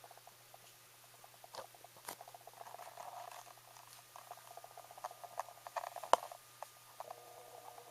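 A person snoring, a rattling snore on each breath, in stretches a second or two long. A few sharp clicks cut through, the loudest about six seconds in.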